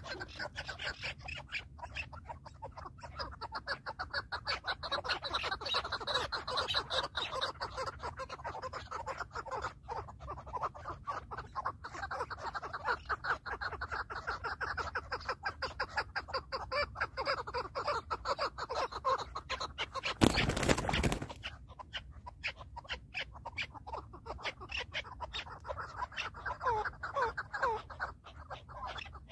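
Chukar partridges calling: a long run of fast, repeated notes, with a few short sliding notes near the end. About two-thirds of the way through, a loud burst of noise lasting about a second covers the calls.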